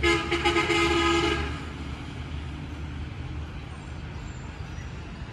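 Train horn sounding one steady blast of about a second and a half, over the low rumble of the train.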